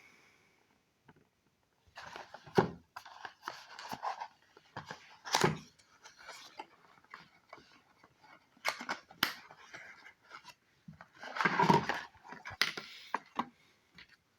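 Medicine packaging being handled by hand: irregular rustles, scrapes and clicks, starting a couple of seconds in, with a longer, louder spell of rustling about eleven seconds in.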